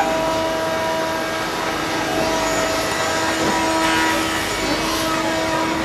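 Steady hum and rushing air of workshop machinery running, with a few constant tones over the noise.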